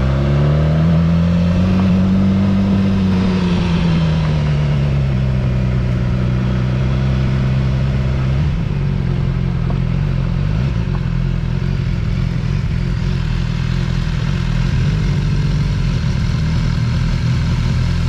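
A vehicle's engine under way, its pitch rising over the first couple of seconds, then easing back and holding steady at cruising speed, with road noise throughout.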